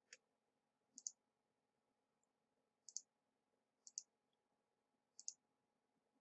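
Faint computer mouse clicks, four of them at uneven intervals of one to two seconds, each a quick double tick of button press and release, as tabs in a software dialog are clicked through. Otherwise near silence.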